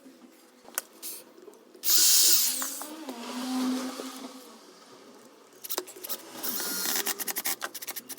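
Power drill running: a loud burst about two seconds in that winds down over a few seconds, then a rapid run of short stuttering bursts near the end.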